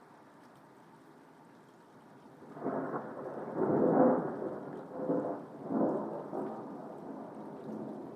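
Steady faint rain, then thunder breaks about two and a half seconds in, peaks about a second later and rolls on in several further waves over the rain.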